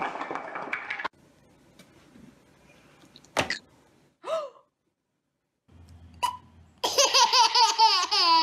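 Giant wooden blocks clattering as a tower falls, ending about a second in; a short falling vocal sound midway; then a baby laughing in a run of rapid, high giggles near the end, the loudest sound.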